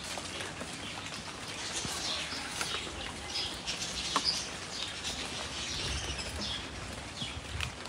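Small birds chirping in short, scattered calls over a soft, steady hiss.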